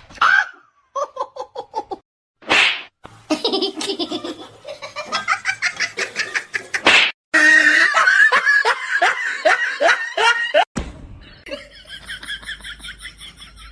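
People laughing in rapid rhythmic ha-ha bursts, some of it high-pitched, across several short clips that cut in and out abruptly.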